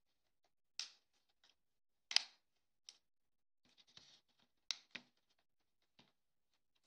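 Plastic clips of a replacement iPod Touch digitizer frame snapping into place as it is pressed down by hand: a handful of short, sharp clicks and snaps, the loudest about two seconds in.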